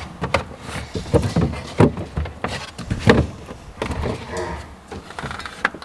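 Bottles and cartons being pushed aside on refrigerator shelves: a string of irregular knocks, clinks and scrapes as they bump and slide against each other.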